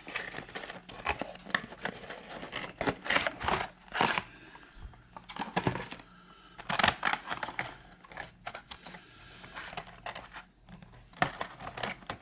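A small retail product box being opened by hand: packaging rustling and tearing, with irregular crinkles, scrapes and taps of handling.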